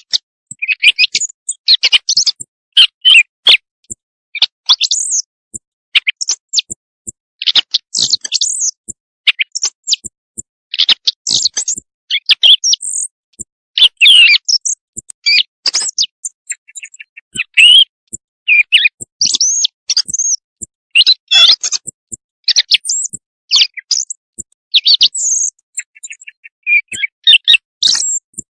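Recorded thrush song used as a hunting lure call: a fast run of short, varied, high chirping and whistled phrases, each split from the next by a brief silence.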